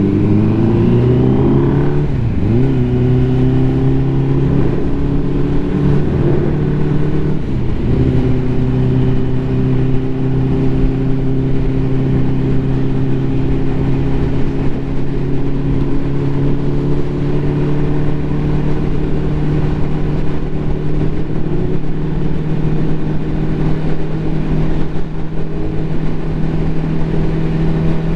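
Ducati motorcycle engine accelerating, its pitch rising for the first couple of seconds, with two brief dips in pitch about two and a half and eight seconds in as it shifts gear. It then runs steadily at cruising speed, the pitch creeping slowly higher.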